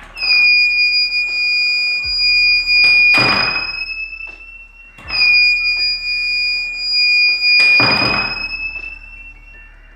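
9-volt piezo buzzer of a homemade laser-tripwire alarm sounding a steady high-pitched tone, broken only briefly about halfway: the door has cut the laser beam and the alarm keeps sounding while the door stays open. Two short rushing noises, about 3 s and 8 s in, come from the door being swung.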